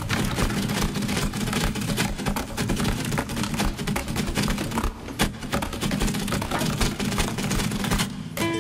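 Industrial laundry machines running: a steady low rumble with dense, rapid rattling and clicking.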